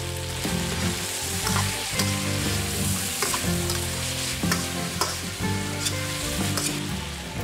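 Chicken pieces and green onions sizzling in a stainless steel frying pan as a slotted metal spatula stirs them, with scattered clicks and scrapes of the spatula against the pan.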